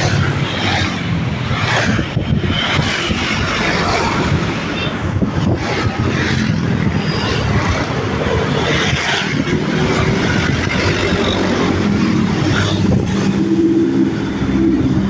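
Daihatsu Gran Max van engine running through an aftermarket SOS exhaust, giving a rough, raspy ('ngorok') exhaust note, with a steadier hum coming through about halfway.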